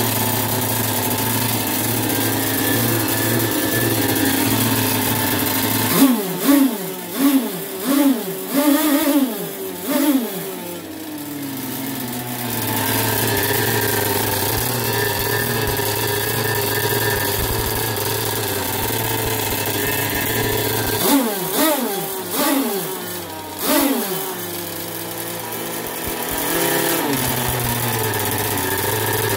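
Modded RCMK two-stroke gas engine of an RC speed boat, run on the stand. It idles steadily and is blipped through about six quick revs starting about six seconds in, settles back to idle, then gets another burst of revs past twenty seconds and a short one near the end.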